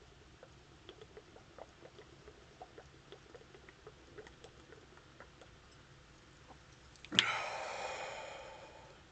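Faint, scattered tiny popping and ticking of fizzing A&W root beer. About seven seconds in, a sudden loud sound with a sharp start that rings and fades away over about two seconds.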